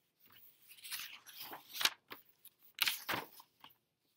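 Paper pages of a picture book rustling and crinkling as the book is handled and its pages turned, in several short bursts.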